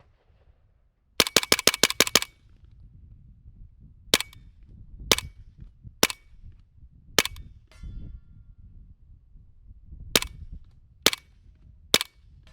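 Suppressed gunfire: a quick string of about seven shots a little over a second in, then seven single shots spaced about a second apart.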